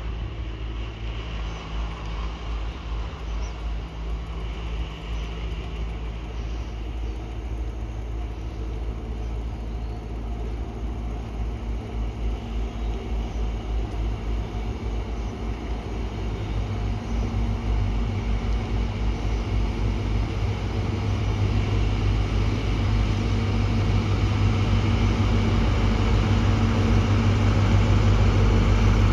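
A train's steady low hum, growing louder through the second half as the train approaches.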